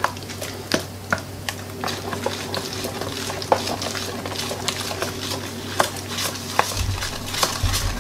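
A spoon beating thick wheat-flour batter in a plastic bowl to break up lumps. It makes irregular quick clicks and taps against the bowl, over a steady low hum.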